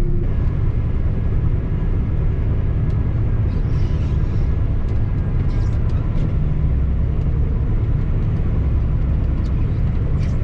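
Combine harvester running while harvesting maize, a steady low rumble of engine and threshing machinery heard from inside the cab.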